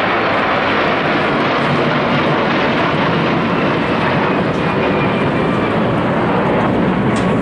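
Military jet fighters, CF-18 Hornets and F-16 Fighting Falcons, flying over in formation: a loud, steady jet-engine roar.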